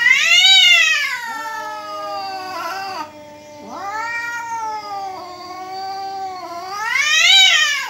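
Two domestic cats in a fight standoff yowling at each other: long, drawn-out caterwauls that rise and fall in pitch and overlap, loudest at the start and again near the end. These are threat yowls, the warning before a fight.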